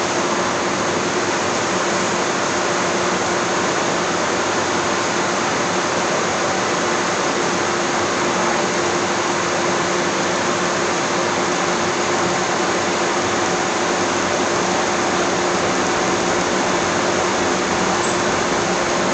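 Cremation retort running, its burners and combustion blowers making a steady rushing noise with a constant hum under it.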